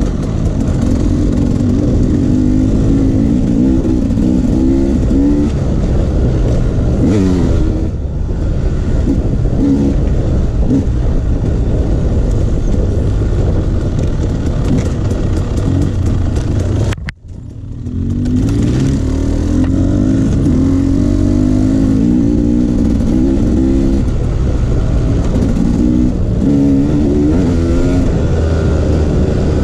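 Enduro dirt bike engine running on a trail, revving up and down continually as the throttle opens and closes. About two-thirds of the way through, the sound drops out abruptly for a split second, then the engine climbs again.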